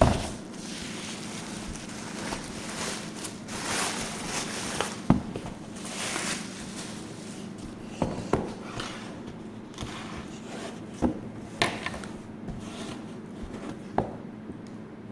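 Packaging being handled during an unboxing: rustling and scraping, with several sharp knocks and clicks spread through.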